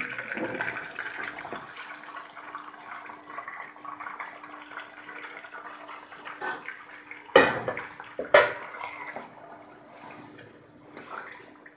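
Beef pieces sizzling as they fry in oil in a steel karahi, with two sharp knocks about a second apart a little past the middle.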